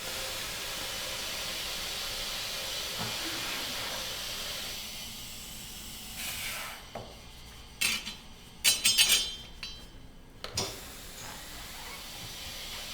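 Pneumatic tire changer hissing compressed air for about five seconds, followed by a series of sharp metal clanks and a knock as the wheel and tire are handled on the machine.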